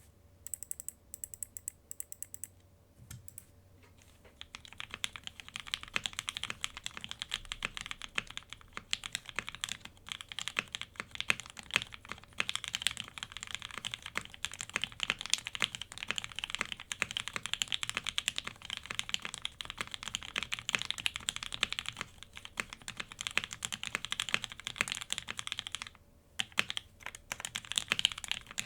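Typing on a gasket-mounted Cannonkeys Chimera65 mechanical keyboard with an FR4 plate, lubed-and-filmed Marshmallow switches (a little overlubed) and GMK keycaps. A few separate keystrokes at first, then after a short pause fast, continuous typing, with a brief break near the end before it picks up again.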